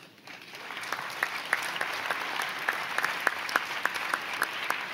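Audience applauding: many hands clapping together, building up over the first half second and then holding steady, with single sharp claps standing out.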